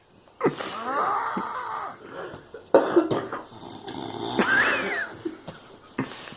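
A drunk person snoring heavily: several long, rattling snores in a row, one of them with a high whistling wheeze. Their pitch slides up and down, almost like a voice.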